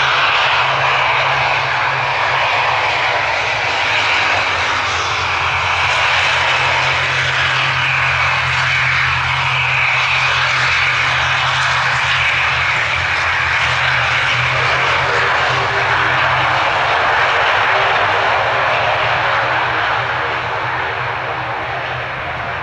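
ATR-72's twin turboprop engines running: a steady low propeller drone under a broad engine hiss, holding an even level throughout.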